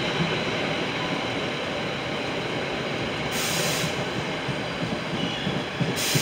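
NJ Transit passenger coaches running past close by at speed: a steady rush of wheels on rail. Two short hisses come through, one about three seconds in and one at the end.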